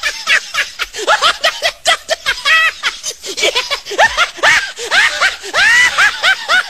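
Laughing-lion meme sound effect: a fast, unbroken run of high-pitched cackling laughs, each yelp rising and falling in pitch, several a second.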